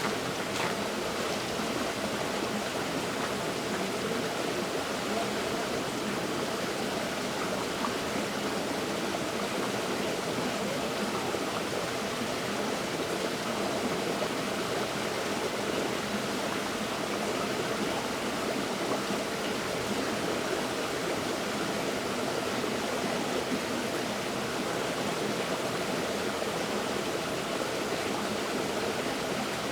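River water flowing and rushing over stones, a steady even rush with no change.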